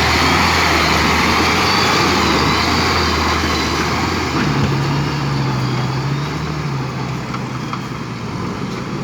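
Diesel engine of a JCB 3DX backhoe loader running steadily, then revving up to a higher pitch about halfway through and easing back slightly near the end.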